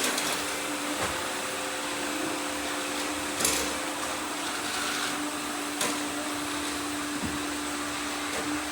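Several robot vacuum cleaners running at once, a steady motor whir and hum with a few short knocks. One higher tone drops out about halfway through.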